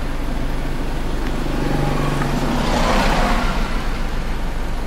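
A motor vehicle's engine passing close by, growing louder about two seconds in and fading again about a second later, over a steady low rumble.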